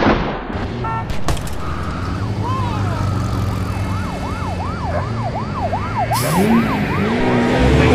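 A siren wailing, rising and falling quickly about two to three times a second over a low, steady city rumble.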